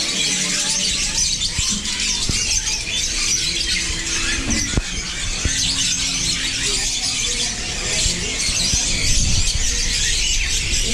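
Many caged parakeets and other parrots chattering and squealing together: a dense, continuous high-pitched chatter.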